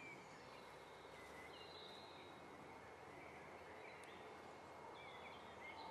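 Faint birdsong: scattered short chirps and whistles over a soft, steady hiss of outdoor ambience.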